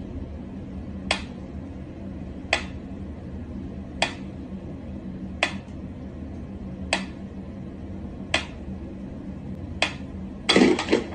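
Mechanical pendulum metronome ticking slowly and evenly, about one sharp tick every second and a half. Near the end there is a louder flurry of knocks and clatter as a cat paws at the metronome.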